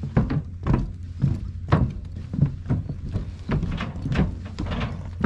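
Footsteps on a wooden-planked gangway: a run of hollow thuds about two a second, over a steady low rumble.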